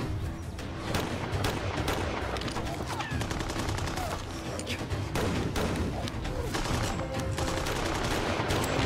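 A long volley of flintlock pistol shots, several a second in quick, irregular succession, over background music.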